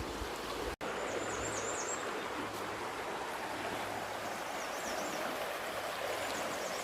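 A river rushing over rocks: a steady, even rush of flowing water.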